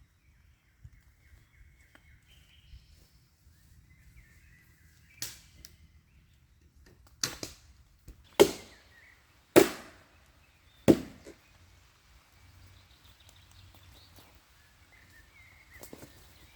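Five sharp knocking strikes, a second or so apart, the three in the middle the loudest, each dying away quickly.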